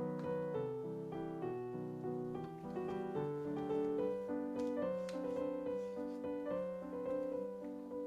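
Background piano music, a gentle melody of sustained notes, with a few faint light clicks of household handling under it about four to five seconds in.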